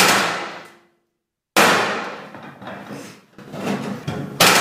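Steel roof sheeting clanging under a series of sharp blows as its flutes are pushed down and clicked onto the fixing clips. There are about four to five bangs, each ringing on for a moment.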